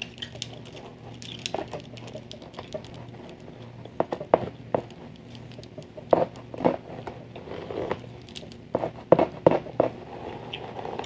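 Close-up ASMR hair-combing sounds, irregular crackly clicks and rustles of hair being combed out near the microphone, with louder clusters about 4, 6 and 9 seconds in. Gum chewing is mixed in.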